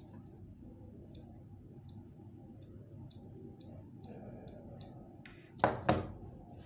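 Light scattered clicks of a hot glue gun being handled and used, then two sharp knocks close together near the end as the glue gun is set down on the table.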